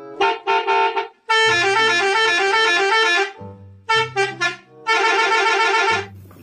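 Telolet bus horn, a multi-tone horn playing its tune. A few short toots lead into a longer run of quickly alternating notes, and the whole phrase plays twice.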